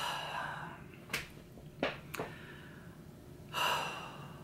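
A man's audible breaths, one at the start and another about three and a half seconds in, like sharp gasping intakes, with three small sharp clicks between them.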